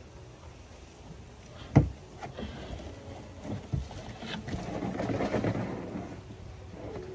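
Large plastic trash cans being moved and bumped: a loud knock about two seconds in, a few lighter knocks, then a scraping rumble for about two seconds as a can is dragged over the ground.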